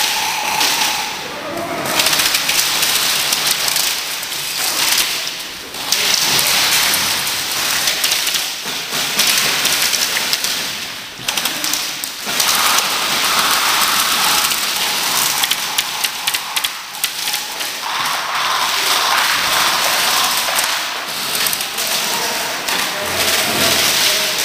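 Many airsoft guns firing at once, with BBs pattering and tapping on plywood barricades. It makes a dense crackle of shots and impacts that swells and dips several times, echoing in a large warehouse hall.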